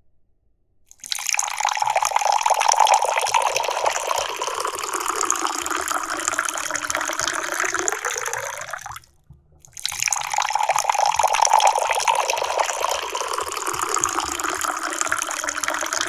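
Tea pouring in a steady trickling stream into a fairness pitcher (gong dao bei). It starts about a second in, stops for a moment about nine seconds in, then pours again.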